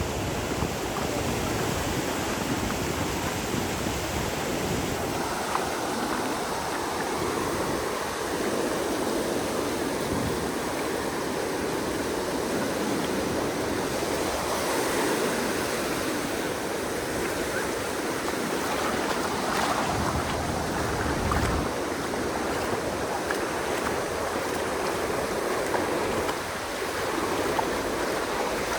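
Ocean surf breaking on a sandy beach: a continuous wash of waves that swells and eases every few seconds.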